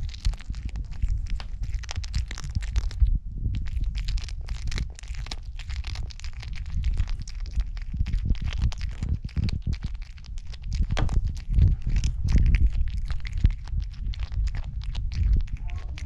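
Cat chewing a raw quail head right at the microphone: irregular wet crunches and cracks of small bones, with a brief pause about three seconds in, over a low rumble.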